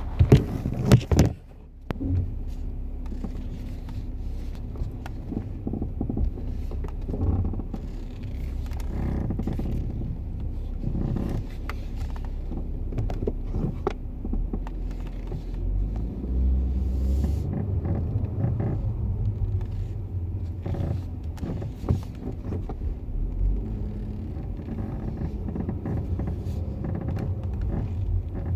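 Intermittent creaking from around the front left wheel arch of a BMW 340i (F31) xDrive, heard muffled from inside the left door pocket over the steady low rumble of the car rolling slowly. A few loud knocks come in the first second or so.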